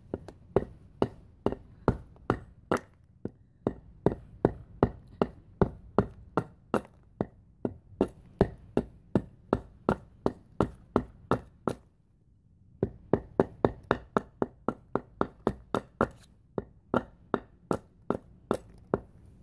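Small hatchet chopping into a hand-held upright log, quick repeated strikes about three a second that shave off curls and chips of wood, with a short break about two-thirds of the way through.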